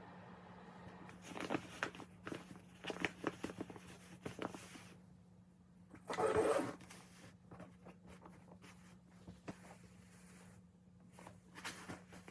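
Objects being handled: a run of light clicks and knocks, a short louder rustle about six seconds in, and a few more clicks near the end, over a steady low hum.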